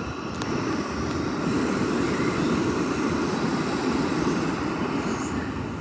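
A fan running, a steady rushing of air that swells slightly in the middle.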